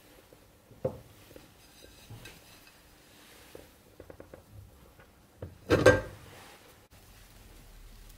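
A ceramic plate knocking against a metal tart pan as it is laid over a baked cake: a sharp clink about a second in, a few light taps, and a louder clatter about six seconds in.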